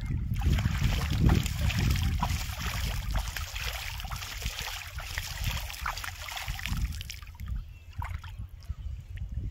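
Shallow water splashing and trickling as a fishing line is pulled out of it by someone wading, over a steady low rumble. The splashing fades about seven seconds in.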